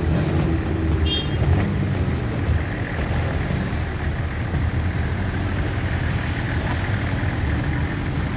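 Engine of an off-road 4x4 vehicle running steadily, with a brief high-pitched squeak about a second in.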